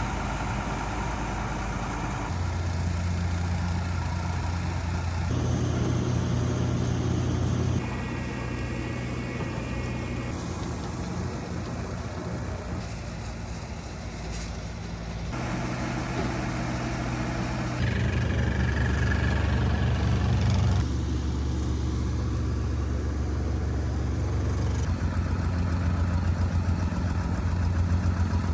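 Heavy paving equipment engines running steadily, in short stretches that change abruptly every few seconds.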